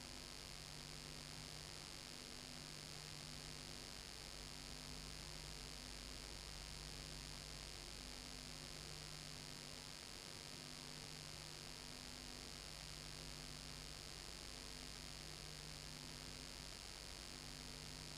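Steady low electrical hum with a faint hiss, a few of its tones pulsing on and off evenly about once a second. It is the noise floor of a soundless home-movie film transfer, with no sound from the scene itself.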